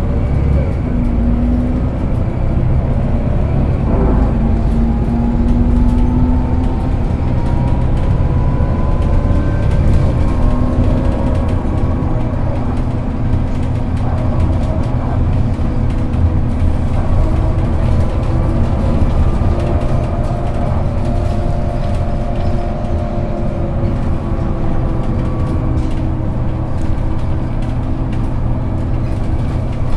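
A Solaris Urbino II 18 articulated city bus underway, its diesel engine running steadily under load. The engine's pitch climbs slowly and drops back twice as the ZF Ecomat automatic gearbox changes gear.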